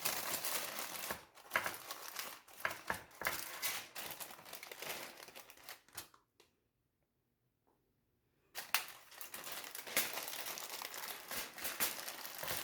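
Parchment baking paper crinkling as it is folded and crimped shut around a tray of meat. There are two stretches of crackly rustling with a silent gap of about two seconds in the middle.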